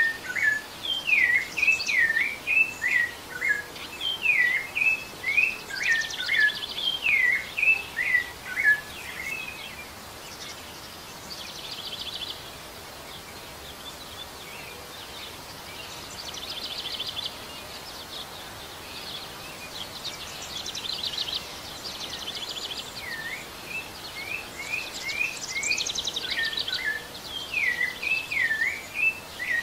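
Rufous-bellied thrush singing: phrases of clear, fluty whistled notes that glide up and down. About ten seconds in, the singing gives way to a quieter stretch of fast, high trills, and the whistled phrases return a few seconds before the end.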